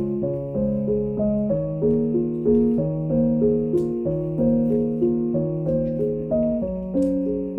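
Background piano music: a gentle, even pattern of notes about twice a second over slowly changing chords.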